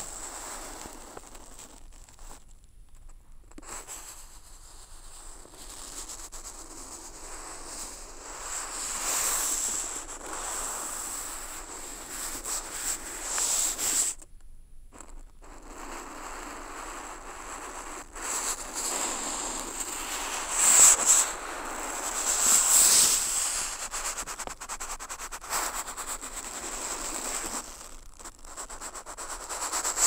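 Ink-laden bamboo calligraphy brush dragged across paper, amplified through contact microphones on the sheet: a rough scratching rub in long strokes. It breaks off briefly about two seconds in and again at about fourteen seconds, where the brush is lifted.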